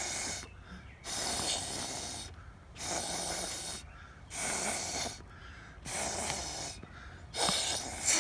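Someone blowing hard through a drinking straw to push runny watercolour paint across paper: a series of about six breathy puffs, each about a second long, with short pauses between them.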